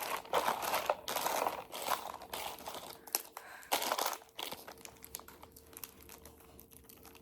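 Candy wrappers crinkling and rustling as wrapped candy is handled and sorted, in dense bursts for the first four seconds or so, then fainter.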